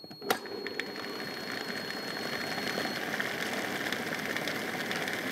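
Food processor attachment on a Kenwood kitchen machine starts with a click and runs steadily, blending minced chicken fillet with egg whites and sour cream into a smooth mousse.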